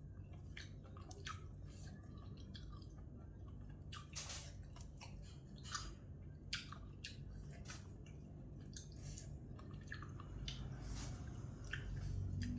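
Mouth sounds of a person eating glass-noodle seafood salad: chewing with irregular wet smacks and clicks, over a faint steady low hum.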